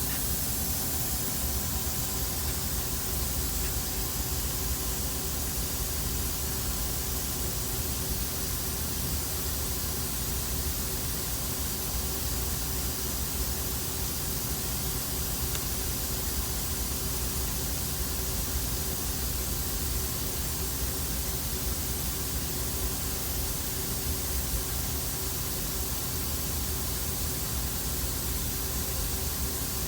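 Steady hum and hiss of a powered-up CNC lathe with no cutting going on: an even hiss with several faint steady tones underneath.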